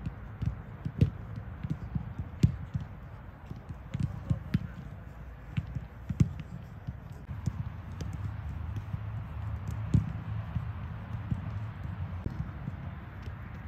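Footballs being kicked and passed on a grass pitch: irregular dull thuds, a few of them sharper and close by, over a steady low rumble.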